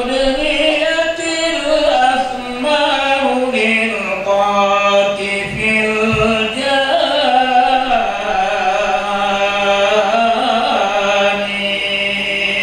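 A man chanting Arabic devotional verses of the marhaban in long, ornamented, sliding notes that are held for several seconds at a time, with a steady low hum beneath the voice.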